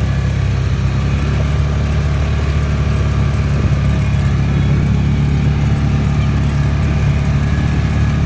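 UTV engine running steadily as the side-by-side drives along, a continuous low hum with no change in pace.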